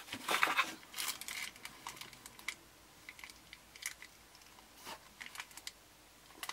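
Packaging being handled while a small product is unboxed: crinkling and rustling, densest in the first second or so, then scattered light clicks and rustles.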